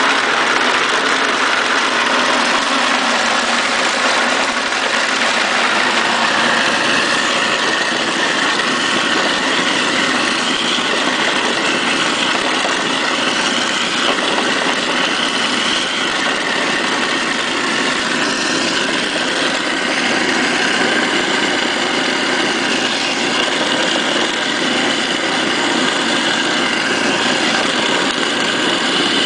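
Garbage-disposal apple grinder running steadily, with its motor going as crab apples are fed into it and ground into pulp for cider.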